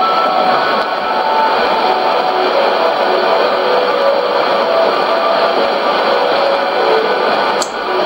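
Music from a shortwave AM broadcast on 7330 kHz, received on a Sony ICF-2001D and half buried in steady static hiss. A melody of short notes shows through the noise, and a sharp crackle of static comes near the end.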